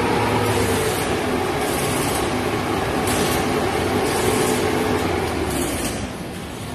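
A vehicle engine being revved with the air-conditioning running: a loud, steady mechanical running noise whose pitch rises and falls twice, easing off near the end.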